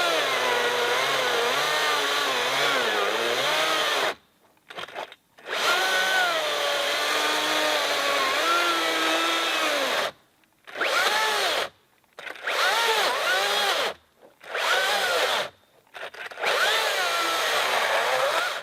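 Makita XCU04 36V cordless chainsaw cutting through a pine log, its motor whine sagging and wavering in pitch under load. The saw stops several times and starts again, in shorter and shorter bursts toward the end, typical of its overload cut-off tripping and being reset.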